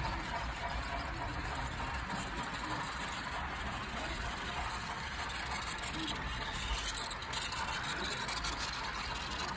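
HO-scale model passenger train running steadily along the track, its wheels rolling on the rails with an even mechanical noise that holds at one level.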